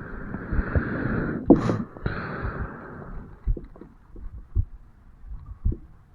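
Heartbeat heard at the mitral valve area of the chest, slow low thumps about once a second. Over the first three seconds a louder rushing breath rises over the beats, with a sharp catch about a second and a half in.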